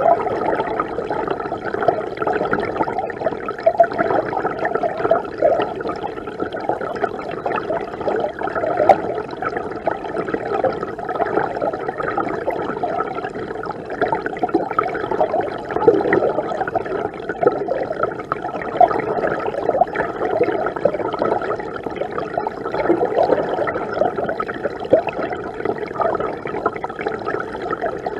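Mountain river water gurgling and rushing, a steady, muffled churn with little hiss.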